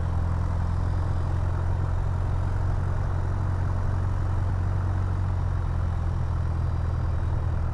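Piper PA-28-181 Archer II's four-cylinder Lycoming O-360 engine and propeller running steadily at low taxi power, a constant low drone.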